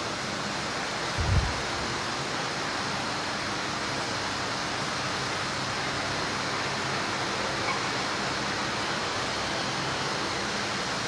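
Steady, even background hiss, with one low thump about a second and a half in.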